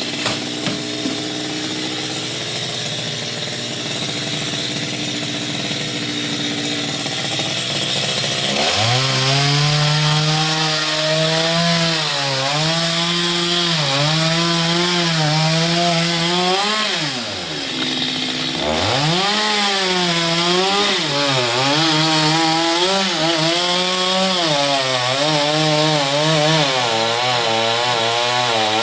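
Chainsaw running steadily at a low speed, then revved up about eight seconds in and cutting into mango wood, its pitch rising and sagging repeatedly as the chain bites. Near the middle the engine drops back briefly before revving into the cut again.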